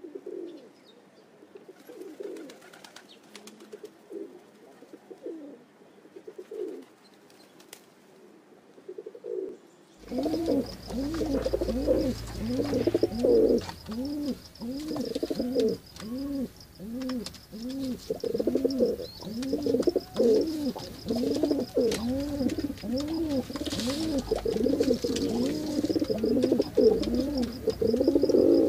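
White-headed domestic pigeons cooing: a long run of short coos, each rising and falling, faint at first and much louder from about ten seconds in, at roughly two a second. A faint steady high whine runs behind them from about ten seconds in.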